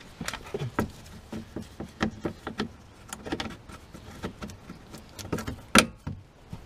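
Scattered light clicks and taps of a hand tool being handled under the car, with rag wiping around the freshly tightened oil drain plug; one sharper knock near the end.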